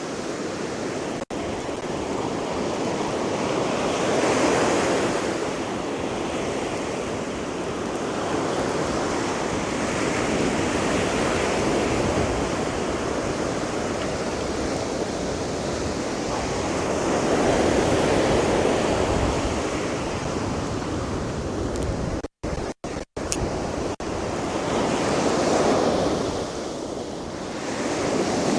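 Sea waves breaking on the beach, the surf swelling and falling back every several seconds. The sound cuts out in a few brief drop-outs about 22 seconds in.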